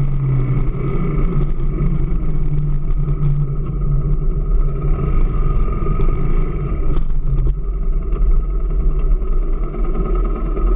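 AKT DS 200 motorcycle engine running steadily at low revs, its pitch holding nearly constant with small wavers.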